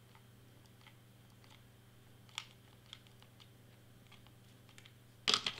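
Hot glue gun worked over cardstock: scattered light clicks and taps, one sharper click about two and a half seconds in, and a louder clatter near the end, over a faint steady low hum.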